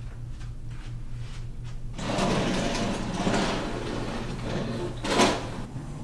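Curtains being drawn open along their rail: a rushing slide starts about two seconds in and ends with a sharper scrape near the end. A steady low hum runs underneath.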